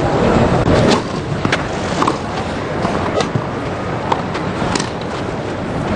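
Tennis rackets striking the ball in a rally: a series of sharp pops roughly a second apart, over a low crowd murmur.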